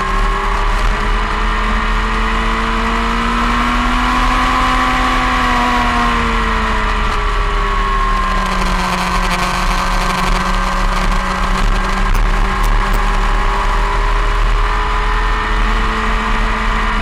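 Onboard sound of a motorcycle engine at speed on a race track, its note rising and falling through the corners, over steady rushing wind noise.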